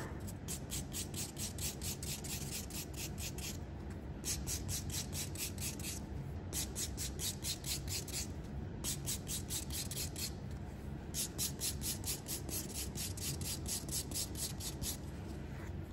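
Nail file rasping back and forth across fingernails in quick, even strokes, about four a second, in five runs with short pauses between.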